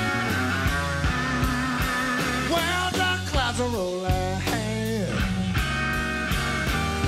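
Slow electric blues band: an electric guitar plays a fill of bent notes over bass and drums, with the bends sliding down in pitch about halfway through.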